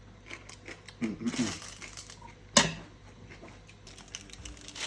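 Light clicks and knocks of kitchen utensils and food being handled, with one sharp knock about two and a half seconds in. A brief murmured voice sounds about a second in.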